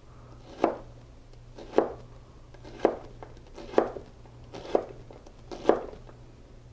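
Chef's knife dicing a shallot, the blade knocking down on a plastic cutting board: six even chops about a second apart.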